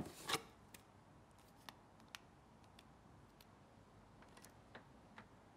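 Quiet handling of a tablet: two sharp knocks at the start as it is picked up, then faint scattered clicks and ticks as it is held out.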